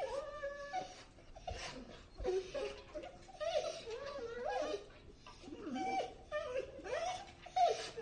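Dog whining: a string of short whimpers that slide up and down in pitch, with brief breaks between them.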